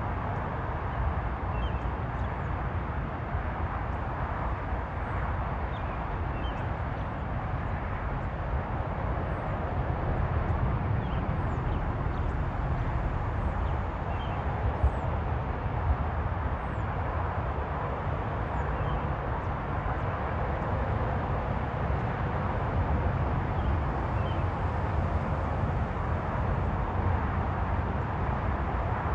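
Steady low outdoor rumble with no rise or fall, and faint, scattered high chirps.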